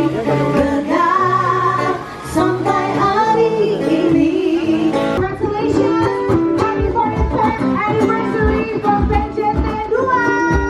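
Live band playing a song: female singing over guitar, with a steady beat coming in about halfway through.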